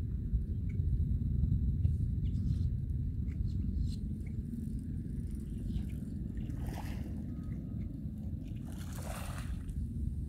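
Low, gusty rumble of wind buffeting the microphone, with small waves washing at the rocky shore and two brief soft swishes of water, one near the middle and one shortly before the end.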